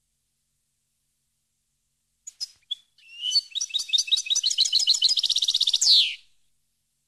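European goldfinch song: a few short separate high notes about two seconds in, then a fast run of notes that quickens into a trill and ends in a falling note about six seconds in.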